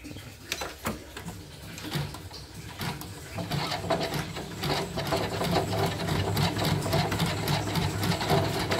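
Elna portable embroidery machine stitching. It starts with scattered clicks, then about three and a half seconds in it settles into a steady, fast stitching rhythm over a motor hum. The repairer says the machine runs erratically and not fully normal.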